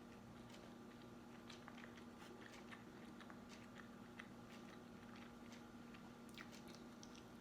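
Faint chewing and biting of crispy sauced chicken: soft, irregular crunchy clicks of the mouth working on the food, over a faint steady hum.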